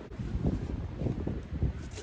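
Wind buffeting the microphone: irregular low rumbling gusts.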